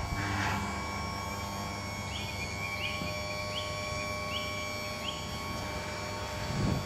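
Electric lift mechanism of a remote-controlled pop-up BBQ unit humming steadily as the unit rises out of the deck.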